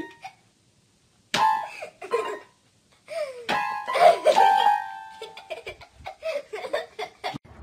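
Small electronic toy keyboard sounding notes as an animal's paws and nose press its keys: a few separate held notes and chords with short gaps between them, then a quicker run of short notes near the end.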